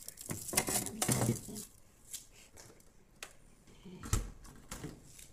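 Plastic bags rustling and frozen items clattering in a refrigerator freezer for about the first second and a half, then a few light clicks and one low thump of a refrigerator door about four seconds in.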